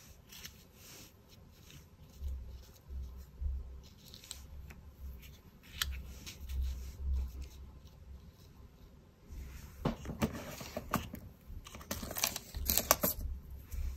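Paper and lace trim rustling and crinkling as they are handled and pressed into place, in scattered short bursts that are busiest about ten seconds in and again near the end.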